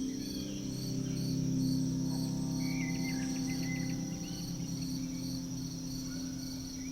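Crickets chirping in a steady, even pulse over a held low ambient music drone, with a few brief higher chirps about a third of the way in.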